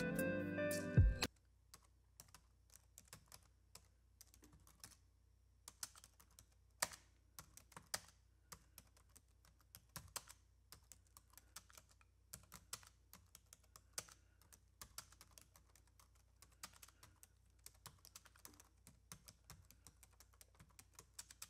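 Music cuts off about a second in; after it come faint, irregular key clicks of typing, several a second, as a typing sound effect.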